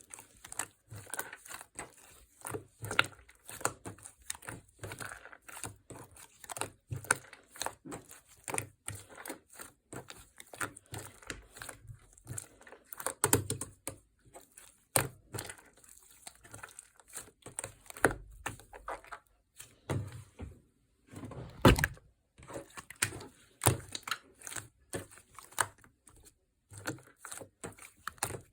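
Fluffy foam slime being squished and stretched by hand, giving a dense, irregular run of small crackling pops and squelches, with one louder snap a little before 22 seconds in.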